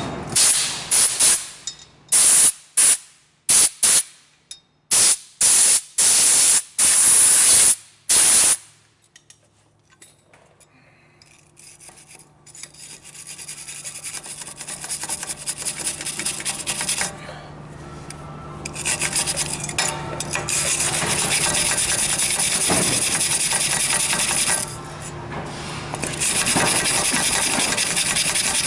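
Compressed air blown from an air-hose blow nozzle in about ten short, loud blasts over the first eight seconds. Later, a hand tool scrapes steadily over the rusty steel wheel hub to knock off scale and rust.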